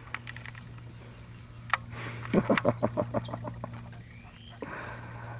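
Golden retriever puppies playing with a stuffed chew toy: a few soft clicks, then a quick run of short low grunting sounds around the middle. Birds chirp briefly in the background over a steady low hum.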